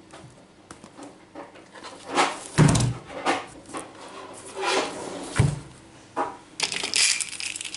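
Rustling and knocking of fabric backpacks and packaging being handled, with two dull thumps, one about a third of the way in and one past the middle, and a louder rustle near the end.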